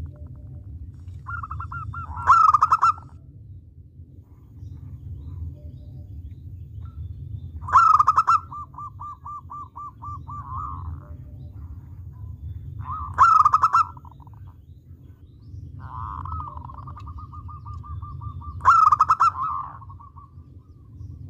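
Zebra dove (perkutut) cooing in a cage: rapid runs of short repeated coos building into a loud coo phrase, four times about every five and a half seconds, over a steady low hum.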